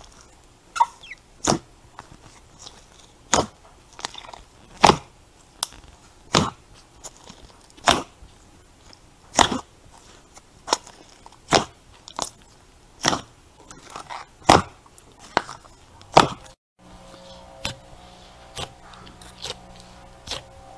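Crunchy slime being pressed and squished, giving sharp crackling pops about once or twice a second. After a brief cut near the end the pops are fewer, over faint steady background tones.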